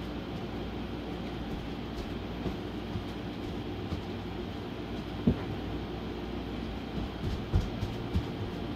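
Steady low background rumble, with one sharp knock about five seconds in and a couple of softer thumps near the end.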